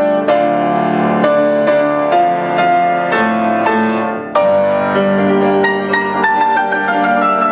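Solo piano music: chords struck about twice a second, each ringing and fading. A little past the middle a new phrase begins, with a melody of quicker notes stepping downward.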